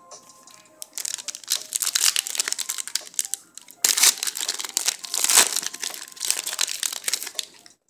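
Foil trading-card pack wrapper crinkling and crackling as it is handled, in irregular rustling stretches lasting several seconds.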